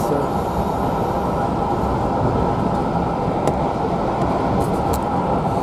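Steady rumble of a railway carriage running at speed, heard from inside the coach, with two faint clicks near the end.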